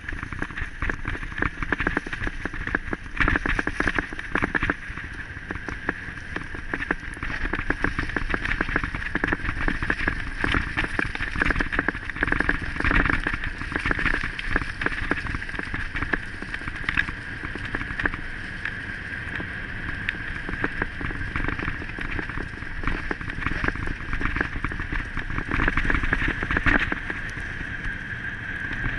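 Rattling and rumbling of a wheeled rig jolting fast over a rough dirt trail, with many small knocks, wind on the microphone and a steady high tone running underneath.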